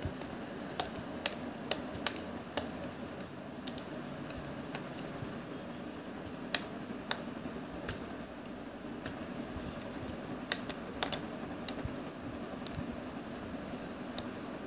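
Computer keyboard keys and mouse buttons clicking at irregular intervals, sometimes two or three in quick succession, over a steady low background hum.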